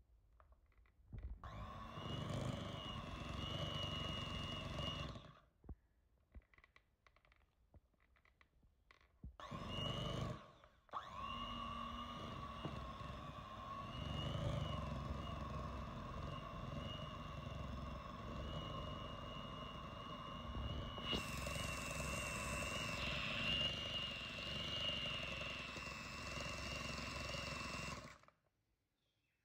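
Electric mixer running, its beaters whipping a thick, creamy mixture: a steady motor whine that starts and stops abruptly several times. The longest stretch is the last, about 17 seconds.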